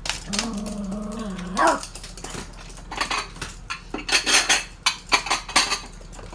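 Toy poodle giving a steady playful growl for about a second, which ends in a sharp bark. A few seconds of quick clicks and knocks follow as the dogs scuffle over their stuffed toys.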